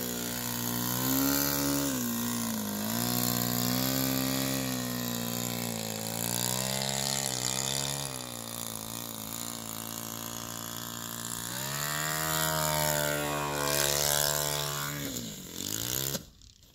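Magnum .80 glow engine of a radio-controlled aerobatic model plane running in flight, its pitch rising and falling as the throttle is worked. The sound cuts off suddenly near the end.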